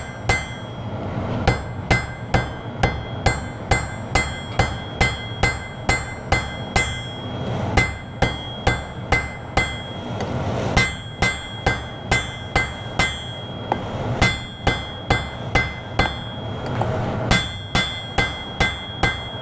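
Hand hammer striking a small piece of hot iron on an anvil in steady blows, about three a second, each blow leaving a high ring from the anvil; the hammering stops briefly a few times. The end of a small forged iron pendant handle is being tapered.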